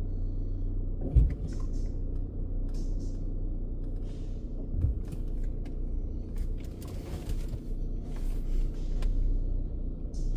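Steady low rumble of a car idling, heard from inside the cabin, with a sharp thump about a second in, a softer one near five seconds, and a few short hisses.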